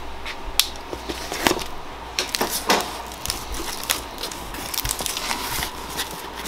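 A crushed cardboard box being cut open with a box cutter and its flaps pulled apart: irregular crackles, scrapes and sharp snaps of cardboard.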